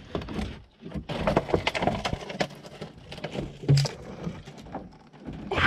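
Twigs and branches snapping and rustling, with irregular knocks against wood, as a kayaker pulls herself under a low fallen tree and through mangrove branches.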